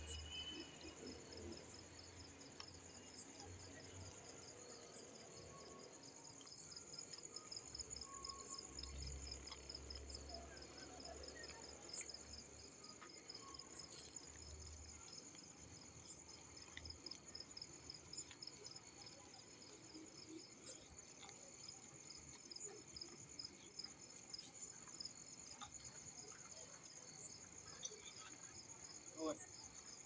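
Crickets chirping faintly and without pause: a steady high trill with a second, pulsing chirp just below it.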